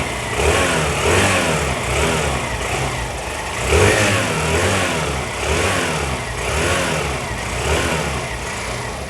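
Hero Glamour 125 cc single-cylinder motorcycle engine, heard at the exhaust, being blipped repeatedly from idle in short revs, about one a second, each rising and falling in pitch. The strongest rev is about four seconds in.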